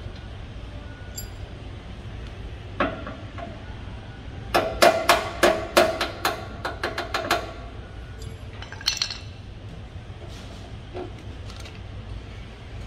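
Claw hammer striking metal with a ringing clink: a single blow, then a quick run of about a dozen light taps at roughly four a second, then another single blow and a few faint ones.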